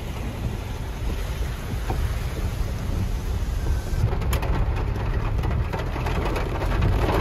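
Rain falling on a car, heard from inside the cabin, over the low rumble of the car driving slowly through a flooded lane. From about four seconds in, sharper ticks of drops are heard on top.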